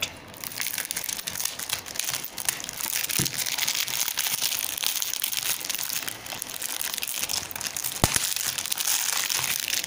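Thin plastic shrink-wrap crinkling and crackling as it is peeled and torn off a Blu-ray case, with a sharp click about eight seconds in.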